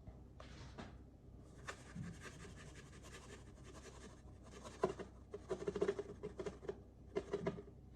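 A utensil scraping and stirring food in a bowl: quiet, irregular scratching strokes, busier and louder from about five seconds in.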